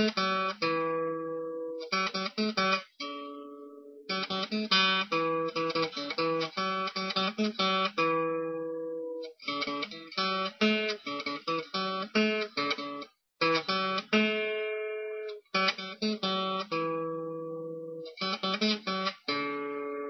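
Acoustic guitar music: strummed chords that ring out between strums, with a few brief pauses.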